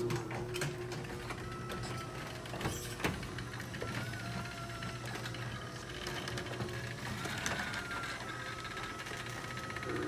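Chamberlain RJO20 direct-drive, wall-mounted garage door opener running as it turns the door's torsion shaft and moves the door: a steady motor hum with a faint wavering whine and scattered mechanical clicks.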